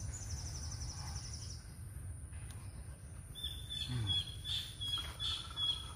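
Wild birds calling: a fast, high trill in the first second and a half, then from about three seconds in a thin, high chirping call repeated about twice a second. A low, steady rumble runs underneath.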